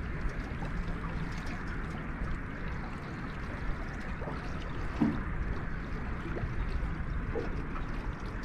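Steady wash of river water moving around a boat, with a little wind on the microphone, and a couple of faint short squeaks about halfway through and near the end.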